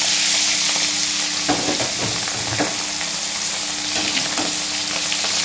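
Pieces of pekasam ikan lais, fermented lais fish coated in fermented rice, sizzling hard in hot oil in a wok just after being put in: a dense steady hiss with a few crackles.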